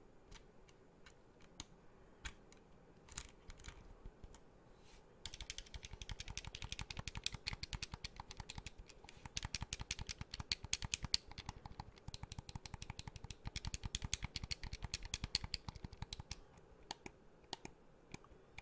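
Xbox Elite Series 2 controller being clicked by hand: a few separate clicks, then from about five seconds in a long fast run of clicking like typing, thinning out again near the end.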